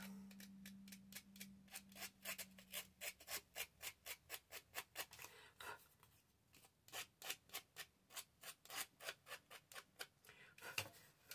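Faint, quick scratchy strokes of hand work on paper, about five a second, with a short pause about six seconds in.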